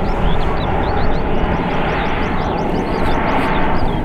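A PZL-Mielec M28 Skytruck's twin Pratt & Whitney turboprop engines running steadily in flight overhead. It is a loud, even engine and propeller sound with a steady hum.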